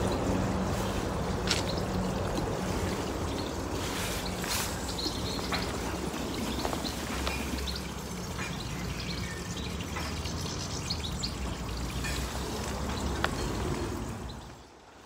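Water from a small stone spillstone cascade pouring and trickling steadily into a garden pond. The sound fades out near the end.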